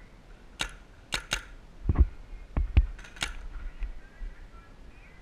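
Paintball fire at close quarters: five sharp pops, two of them in quick pairs, with three dull, heavier thuds in the middle.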